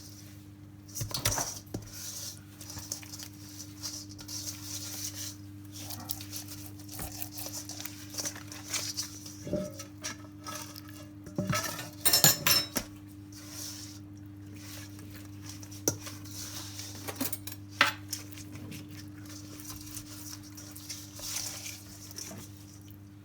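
Kitchen handling noise while fish is rubbed with a spice marinade: scattered clinks and knocks of a dish and utensils, with a busy run of clatter about halfway through, over a steady low electrical hum.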